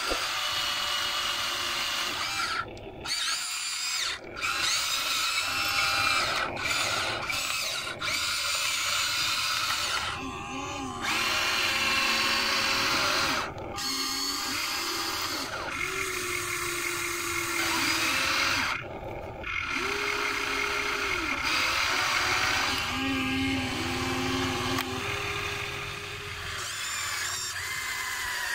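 Electric motors of a Huina remote-control excavator whirring as the boom, bucket and turret work, starting and stopping in short runs of a few seconds each, with the pitch shifting from run to run.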